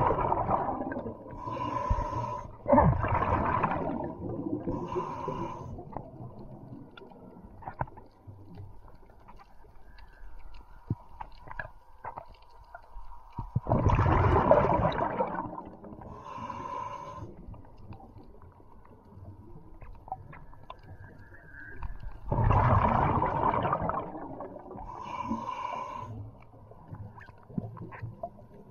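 A diver's breathing heard underwater: loud bubbling exhalations alternate with shorter hissing breaths that carry a faint whistle. Three rounds come several seconds apart, with a quieter stretch between them.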